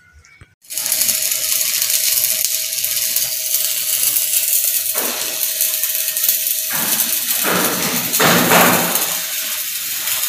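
Stick (arc) welding rebar: the welding arc gives a steady hiss that starts abruptly about half a second in and grows louder in several swells toward the middle and end.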